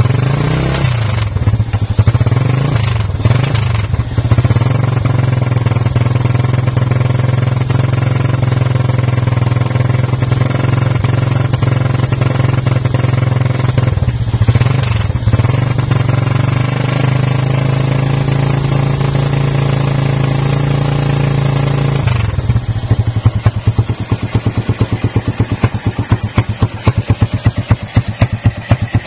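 Motorcycle engine exhausting through a homemade muffler made from an old biscuit tin, revved up and down a few times and held at a steady high rev. About 22 seconds in it drops back to a pulsing idle.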